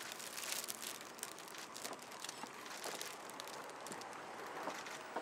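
Faint scattered clicks and crinkles over a steady background hiss.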